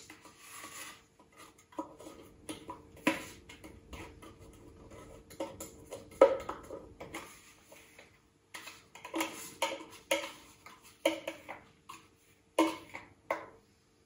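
A utensil scraping and knocking against the inside of a food-processor bowl as crumbly biscuit base is tipped out into a cake ring: scattered irregular scrapes and clinks, the sharpest about six seconds in and again near the end.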